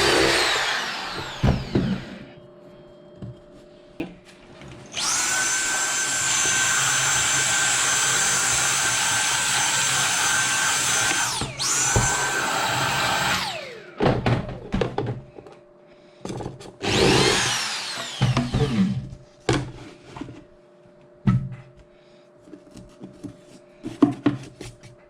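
Power drill running in bursts with a steady whine. It winds down at the start, runs for about six seconds, stops briefly and restarts, then gives one more short run, with knocks and clicks of handling wood between runs.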